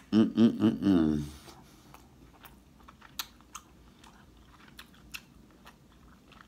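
A man's voice gives a few short pleased moans in the first second. Then comes quiet chewing of seafood, with scattered soft mouth clicks.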